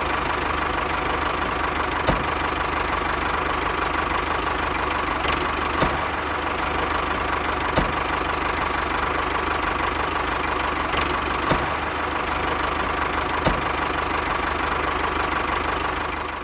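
Mini tractor's small engine idling steadily, with a sharp tick about every two seconds; it cuts off suddenly at the end.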